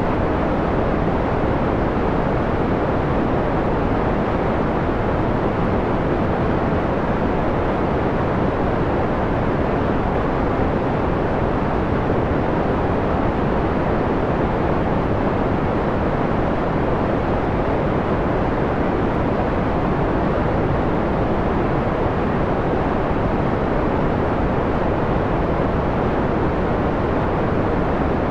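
Steady white noise filtered to a dark, mellow hiss, with most of its energy low and little treble.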